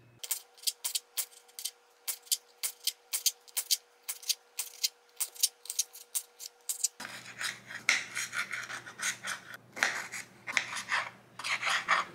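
Kitchen knife chopping diced red and yellow bell pepper on a cutting board, sharp taps about three or four a second. About seven seconds in, the sound changes to longer, rasping strokes of the knife slicing cherry tomatoes in half on the board.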